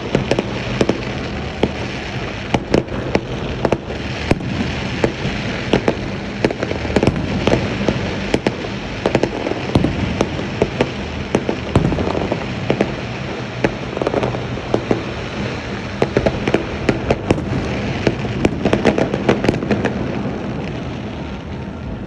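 Fireworks and firecrackers going off nonstop: a continuous dense crackle with many sharp bangs scattered over it.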